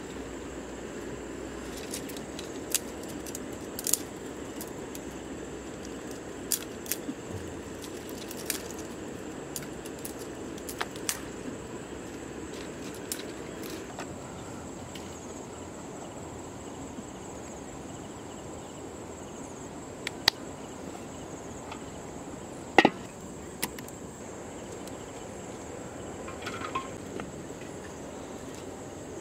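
Steady high insect chirring throughout, with scattered sharp snaps and clicks of dry sticks being handled, broken and laid on a small wood fire; the loudest snap comes about two-thirds of the way through.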